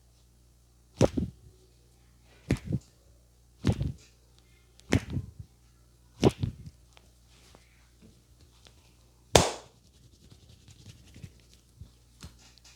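A massaging barber's hands slapping on the head and neck: five quick double slaps at an even pace, about one every second and a half, then one louder, sharper slap near the end.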